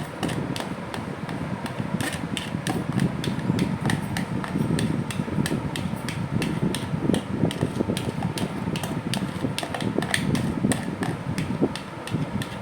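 Spoon beating beaten eggs and chopped vegetables in a bowl: quick, regular clinks of the spoon against the bowl, about three or four a second, over a steady low noise.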